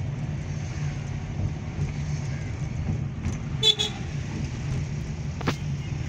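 Steady low engine and road rumble heard from inside a moving car's cabin, with a brief horn toot about three and a half seconds in and a sharp click near the end.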